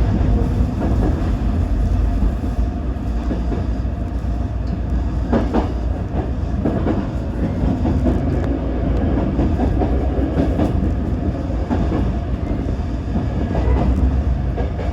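Tōyō Rapid Railway 2000 series electric train running between stations: a steady wheel-and-track rumble heard from the front car, with a few clicks from the rails near the middle.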